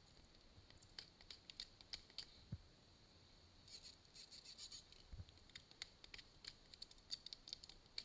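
Faint, irregular light clicks and ticks with a few soft low thumps, in a quiet small room.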